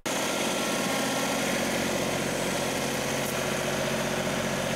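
John Deere 2038R compact tractor's three-cylinder diesel engine running steadily while its front loader carries a bucket of dirt.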